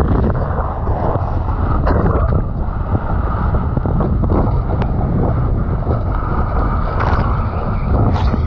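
Wind rushing over an action camera's microphone while a kiteboard planes across choppy sea, with the hiss of spray and scattered sharp slaps as the board hits the chop.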